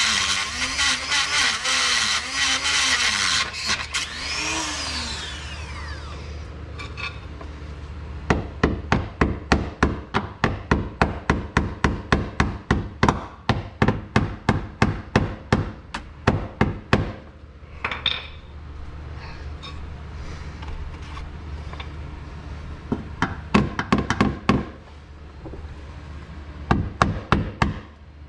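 A Dremel-type rotary tool with a diamond-tipped bit grinding the car's underbody metal, its whine rising and falling, stops about five seconds in. Then a ball-peen hammer taps the underbody sheet metal, first in a steady run of about three strikes a second for roughly nine seconds, then in a few short clusters.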